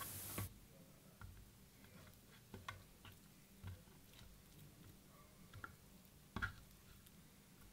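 Faint, scattered taps of a chef's knife on a wooden cutting board as it slices through strips of lamb belly, about half a dozen soft ticks with the loudest near the end.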